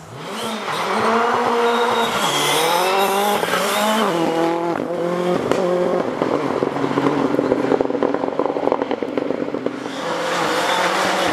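Rally car engine revving hard, its pitch climbing and dropping back in steps through several gear changes. This gives way to a stretch of rapid crackling, then the engine picks up again near the end.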